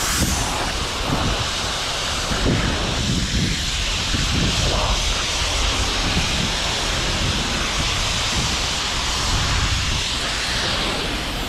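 High-pressure spray wand at a self-service car wash bay spraying water against a car, a steady hissing spray.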